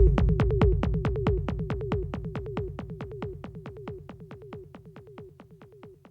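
Roland TR-8S drum machine playing a techno pattern with the kick dropped out: rapid, even percussion hits, about nine a second, each with a short falling blip, over a low rumble. It all fades out steadily to almost nothing.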